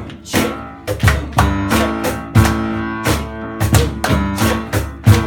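Instrumental backing music for a rap: a steady beat with a low thump on each hit under held chords.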